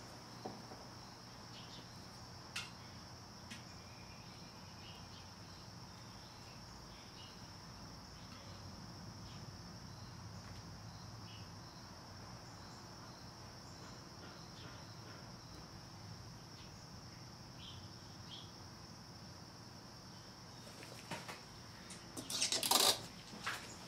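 Power steering fluid poured slowly from a plastic bottle into the reservoir, a quiet trickle under a steady high-pitched whine. A few sharp knocks and clatters near the end as the bottle is lifted away.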